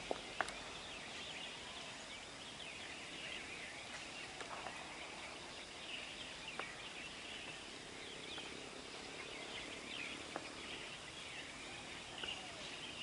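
Faint outdoor ambience: a steady hiss of background noise with small bird chirps scattered throughout and a few soft clicks.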